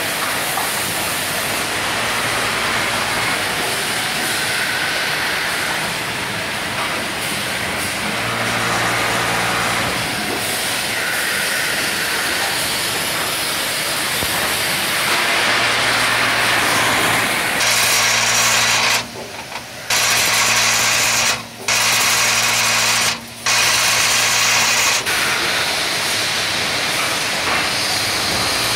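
Automatic gate valve machining machines running: a steady hiss with a low hum that comes and goes. From about 17 seconds in, a louder, higher hiss sets in, cuts out sharply three times, and stops about 25 seconds in.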